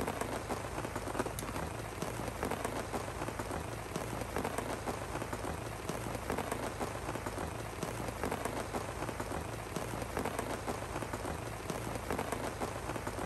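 Heavy rain falling steadily on a tent: a dense, even hiss made up of countless small drop ticks.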